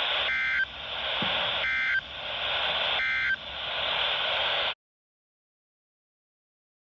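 EAS end-of-message data tones from a NOAA Weather Radio broadcast: three short warbling two-pitch digital bursts, a bit over a second apart, over a steady hiss of radio static. They mark the end of a severe thunderstorm warning. The static cuts off suddenly about two-thirds of the way through, followed by silence.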